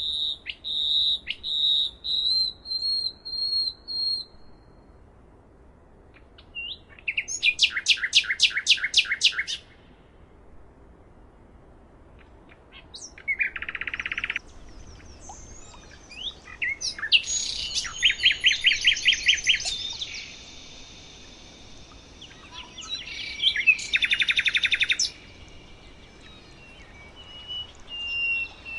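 Several songbirds singing in turn: a series of repeated whistled notes, then bursts of fast trilling with quick rapid-fire notes and scattered shorter calls, over a faint steady background hiss.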